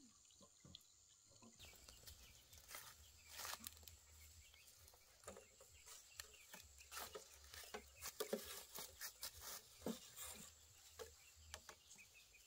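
Near silence: faint outdoor ambience with scattered light clicks and rustles over a low hum that comes in about one and a half seconds in.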